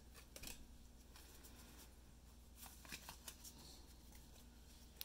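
Faint handling of a stack of Pokémon trading cards: a few soft flicks and taps as cards are moved through the stack, mostly in the second half.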